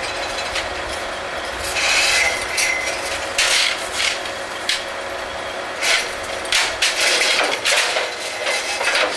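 Sharp metal clanks and scraping of steel on steel as the drill crew handles and makes up the next joint of drill pipe, irregular strikes from about two seconds in, over the steady running of the rig's machinery.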